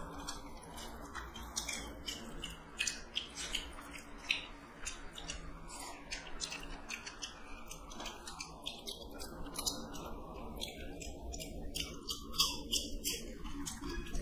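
Close-up eating sounds: wet chewing and mouth smacks, with fingers mixing rice on steel plates, giving a quick irregular run of sharp clicks.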